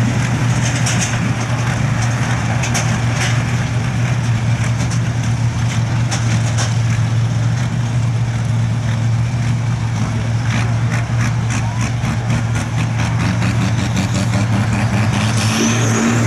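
Sport-class pulling tractor's diesel engine idling steadily, starting to rev up near the end as it throws out black smoke.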